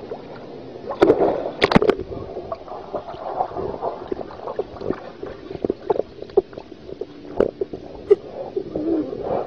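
Splash of a toddler plunging into a swimming pool about a second in, then muffled underwater gurgling and bubbling with irregular clicks as the child swims beneath the surface.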